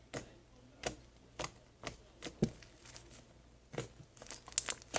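Fluffy slime being squeezed and stretched by hand, giving off small sticky pops and crackles: scattered single pops about every half second, then a quick run of them near the end.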